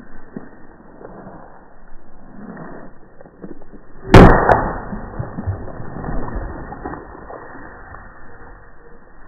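A hammer strikes a water-filled white plastic milk jug, one loud smack about four seconds in, followed by a shorter knock and a brief scatter of sound.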